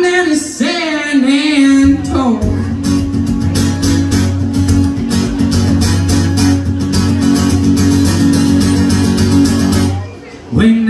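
Acoustic guitar strummed in a steady rhythm, with a man singing over it for about the first two seconds. The guitar then carries on alone and drops away briefly near the end.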